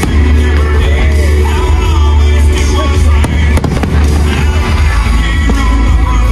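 Aerial fireworks bursting and crackling, with a cluster of sharp bangs about three and a half seconds in, over loud music with a deep bass line and singing.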